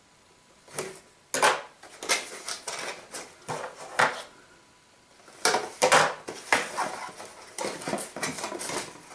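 Toy packaging being opened by hand: a string of sharp crackles, rustles and knocks from cardboard and plastic, starting about a second in, with a short pause about halfway.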